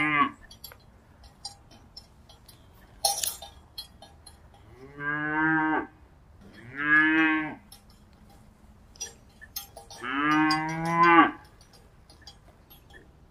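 A cow mooing three times, each call about a second long, with faint clicks and a brief hiss between the calls.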